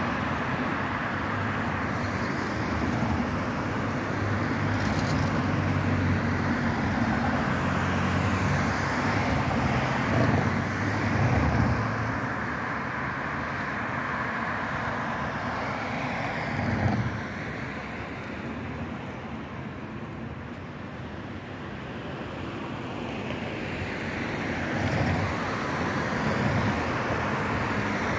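Road traffic on a multi-lane city street: cars and vans passing, tyre and engine noise swelling and fading as each goes by. A brief knock comes about two-thirds through, followed by a quieter spell before the traffic builds again near the end.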